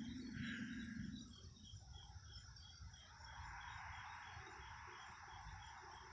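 Faint night-time chorus of insects such as crickets: a regular high chirp about three to four times a second over a steady high drone. A soft rushing noise comes in about three seconds in.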